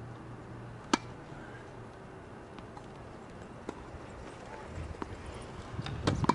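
Tennis ball hits and bounces on a hard court during wheelchair tennis play: one loud, sharp racket-on-ball strike about a second in, then fainter, more distant hits and bounces. Near the end the wheelchair is pushed and turned, with a low clatter from the chair and more strikes.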